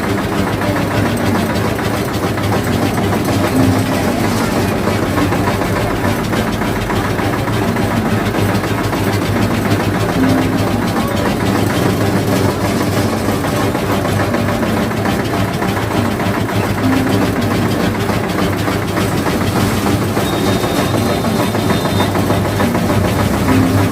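Sugarcane juice machine running steadily, a loud mechanical drone with a low hum. A short recurring sound comes about every six to seven seconds.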